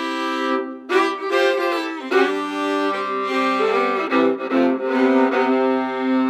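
Two fiddles bowing a slow introduction together, sounding long held notes in harmony that change every second or so.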